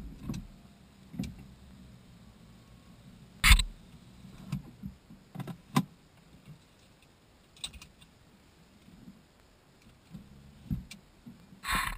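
A BMW E46's steady engine hum stops right at the start, leaving near quiet in the parked car's cabin broken by scattered clicks and knocks, one louder knock about three and a half seconds in. Near the end a louder rustling, scraping noise starts.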